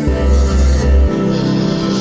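Background music with heavy sustained bass notes that change about once a second.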